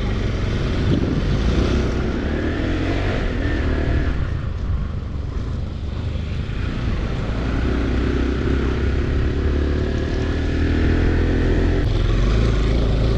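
Motorcycle engine running as the bike is ridden on a rough trail, its pitch rising and falling with the throttle over a steady low rumble. A sharp click comes about 12 seconds in, after which the rumble grows louder.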